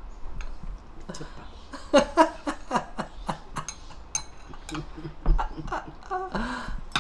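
Someone eating at the table: a spoon and chopsticks clicking against a small ceramic bowl, with chewing and mouth sounds and a short murmured hum near the end.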